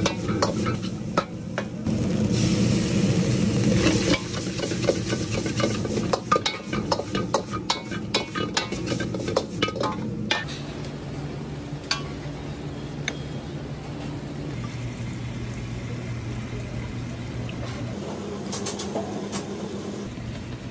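Metal ladle scraping and clanking against a wok as fried rice is stir-fried over a high flame, with sizzling. About ten seconds in the clanking stops, leaving a steady low hum with a few faint knocks.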